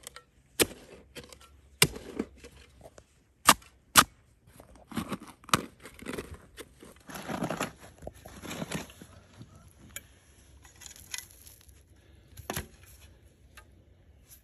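Metal spade blade digging into stony, grassy soil: several sharp strikes in the first few seconds and another near the end, with gritty scraping and crunching through the middle as earth and stones are cut and pried out.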